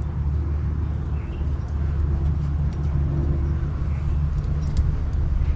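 A steady, low, even machine drone, with a few faint ticks over it.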